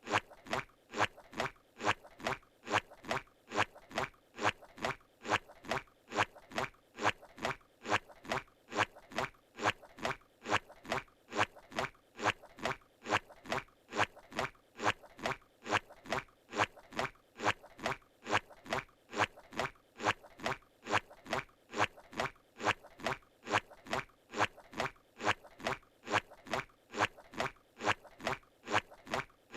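Cartoon footstep sound effect of Squidward walking: a squelchy suction-cup step repeating evenly, about two steps a second, in a steady loop.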